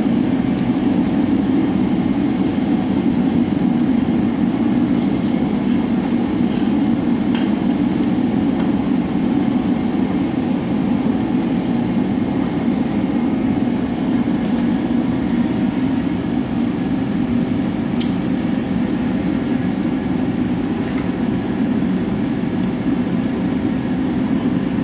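Gas forge burner running with a steady rushing noise while a forged steel chisel heats for hardening. A few faint ticks.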